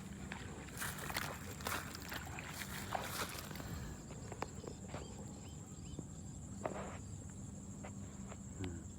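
Light rustling and clicking, like someone moving through vegetation or handling gear, mostly in the first half, over a steady high-pitched insect drone.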